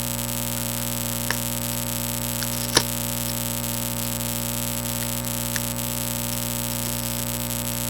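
Steady electrical mains hum and buzz on the recording, with a few faint clicks from the box packaging being handled; the sharpest click comes about three seconds in.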